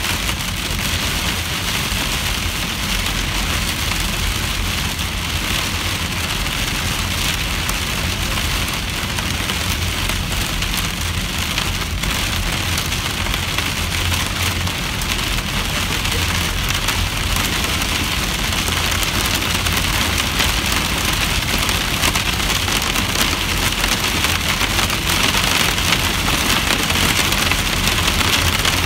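Rain pelting the roof and windshield of a moving car, heard from inside the cabin as a steady dense patter over the low rumble of the car on the road. It grows a little louder toward the end.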